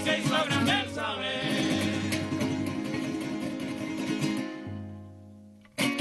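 Golpe tocuyano ensemble of male voices singing with strummed cuatros and guitars. About a second in the singing stops and a held chord rings and slowly fades away. Near the end, strummed strings start again suddenly at full level.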